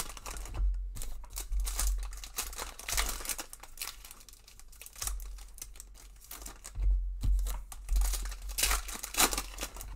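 Shiny foil trading-card pack wrappers of 2021 Panini Prizm basketball packs crinkling and being torn open by hand. The crackle is irregular, thins out midway and picks up again near the end.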